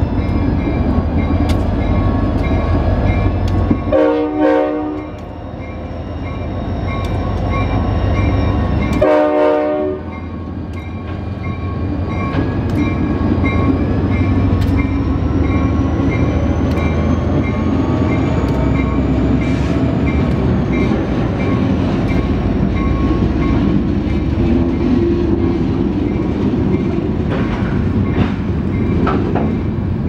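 Diesel locomotive moving slowly past with a string of covered hoppers, its engine rumbling steadily and its bell ringing throughout. Two short horn blasts sound about four and nine seconds in, and wheels click over the rail joints as the cars roll by.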